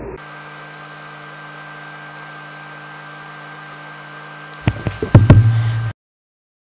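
Sound-design soundtrack: a steady electrical-sounding hum with a thin high whine over it. Near the end comes a quick run of sharp clicks and knocks, then a loud low buzz that cuts off abruptly.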